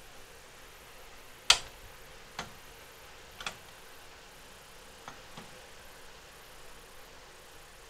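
Scattered sharp metallic clicks and taps inside a steel breaker panel as a bare copper ground wire is worked into the ground bar: one loud click about one and a half seconds in, then a few fainter ones.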